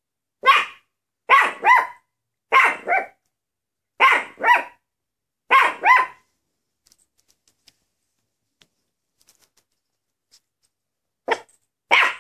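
Maltese dog barking in short pairs, a single bark followed by four quick double barks about a second and a half apart. It then goes quiet for about five seconds and barks twice more near the end.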